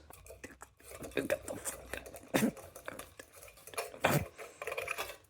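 Irregular clinks and light knocks of glass and metal: light bulbs and light-fitting parts being handled.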